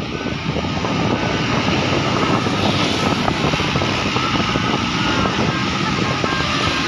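Heavy vehicle engine running loud and steady, a bus passing close, getting a little louder about a second in.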